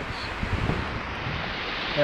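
Wind blowing on the microphone, with low buffeting gusts about half a second in, over a steady rush of surf.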